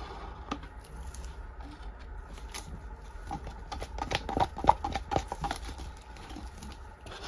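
Light clicking and tapping of small tools against plastic, with a quick run of taps in the middle, the loudest just after halfway.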